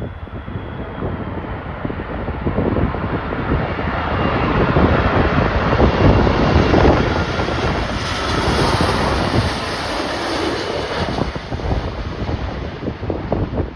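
Jet airliner engines passing by, the noise building to a peak a little past halfway and then easing off. Gusty wind buffets the microphone throughout.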